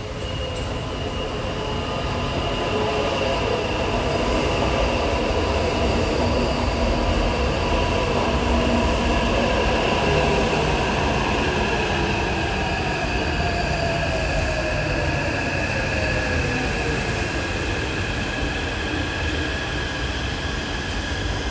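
Taipei Metro electric train pulling into an elevated station and braking, growing louder as it comes alongside. Its motor whine falls in pitch as it slows over wheel and track rumble, with a steady high squeal throughout.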